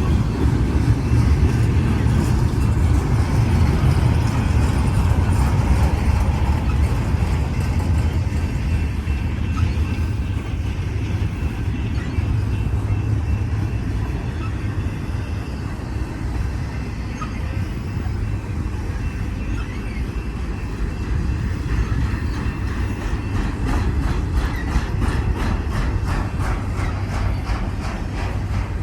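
Union Pacific intermodal freight cars rolling slowly past with a steady low rumble of wheels on rail. Near the end comes a run of quick, regular clicks.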